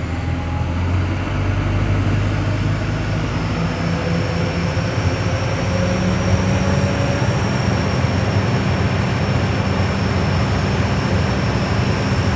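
Kobelco SK200-8 excavator's diesel engine running under hydraulic load as the machine moves, with a faint whine that rises slowly over a few seconds. The machine is moving even with the safety lock lever up, because its lever-lock solenoid has been manually bypassed.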